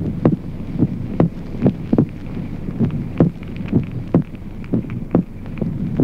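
Recorded heart sounds heard as through a stethoscope: short dull and clear thumps in an irregular beat over a steady low hum. They are the premature beats of ventricular extrasystoles, with the second heart sound split into two components.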